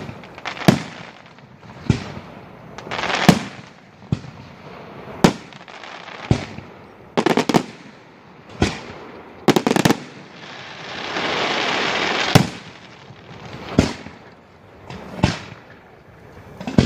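Aerial firework shells bursting, a sharp bang every one to two seconds, with a quick cluster of bangs about seven seconds in. A steady hiss runs for about two seconds from around ten seconds in and ends with the next bang.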